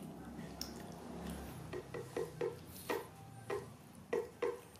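Young macaque chewing a soft sweet bun, with wet mouth clicks. The clicks start about two seconds in and come a few times a second, unevenly spaced.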